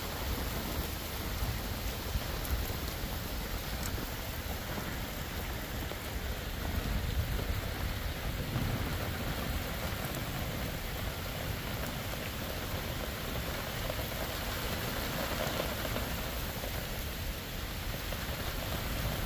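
Heavy rain falling steadily, an even hiss with no letup.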